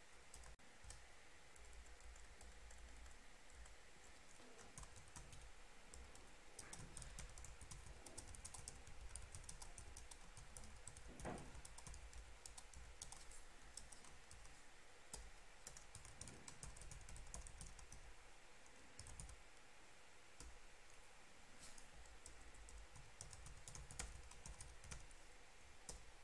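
Faint computer keyboard typing: short runs of key clicks with pauses between them, over a faint low hum.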